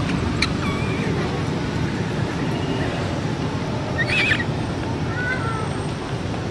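Infant macaque crying in three short, high, wavering squeals, the strongest about four seconds in: the distress cries of a baby calling for its mother. A steady low noise runs underneath.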